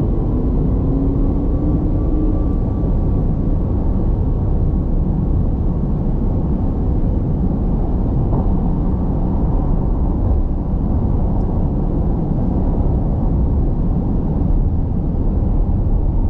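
Cabin noise of a Porsche Taycan Turbo GT at about 240 km/h under full acceleration: steady, loud wind and tyre noise. For the first two seconds or so, the electric motors' whine rises in pitch.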